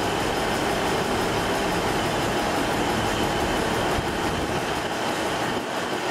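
GB Railfreight Class 66 diesel-electric locomotive running light, its two-stroke EMD V12 engine running steadily as it approaches over the station pointwork.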